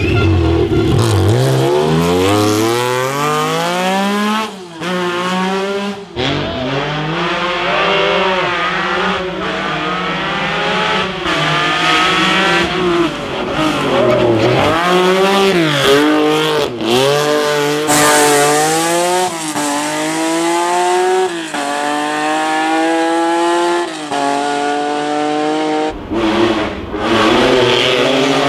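Lancia Stratos HF Group 4 rally car's 2.4-litre Ferrari Dino V6 at full throttle, revving up through the gears with the pitch falling back on each shift. Several separate runs are cut together, with the engine note restarting at each cut.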